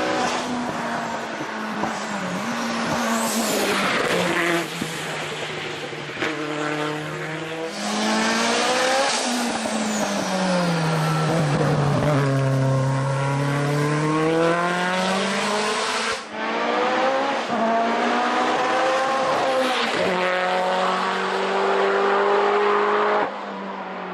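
Lancia Delta Integrale rally car's turbocharged four-cylinder engine through a sport exhaust, revving hard up and down as it is driven flat out, with a slow fall and rise in pitch in the middle and some tyre squeal. The sound changes abruptly several times where separate passages are cut together.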